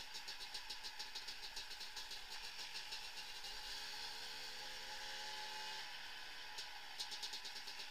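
Vehicle engine running while driving, heard from on board, with a fast regular ticking. In the middle the engine note rises slowly for about three seconds and then drops away about six seconds in.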